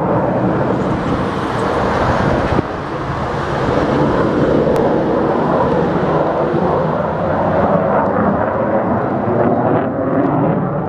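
Jet aircraft flying past overhead: a loud, steady roar whose high hiss fades toward the end as the plane draws away.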